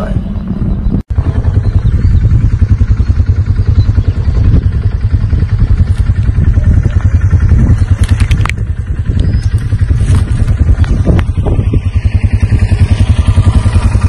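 An engine running steadily with a fast, even chugging pulse, starting about a second in.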